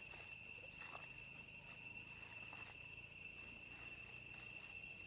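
Faint steady drone of insects: a continuous high-pitched whine that holds one pitch throughout, with a few faint ticks.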